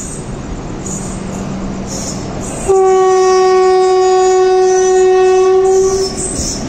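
Indian Railways train horn sounding one long steady blast of about three seconds, starting about a third of the way in, over the running rumble of trains on the adjacent tracks.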